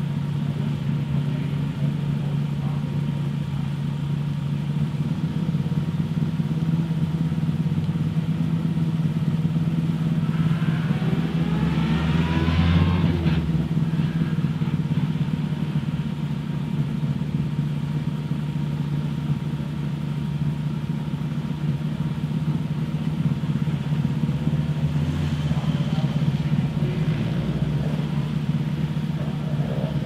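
Rally car engine running at idle, with a rev that rises in pitch about eleven to thirteen seconds in and a shorter one about 25 seconds in.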